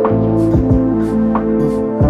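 Background music: sustained keyboard chords over a bass line with a steady beat.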